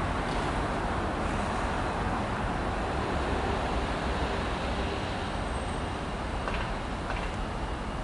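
Freightliner Class 70 diesel locomotive running as it approaches hauling a freight train of flat wagons, a steady low rumble that eases slightly in the second half, with two faint clicks near the end.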